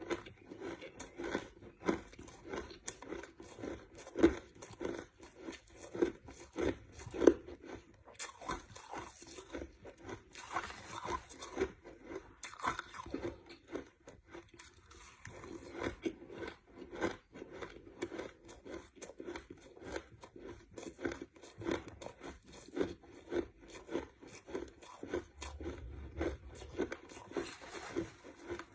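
A person chewing crushed ice: a run of sharp, irregular crunches that pauses briefly about halfway through, then carries on.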